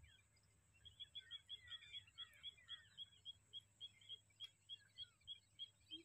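A bird calling a long run of short, high notes, quick at first and slowing a little, over faint outdoor background noise. A few lower chirps sliding downward come early in the run.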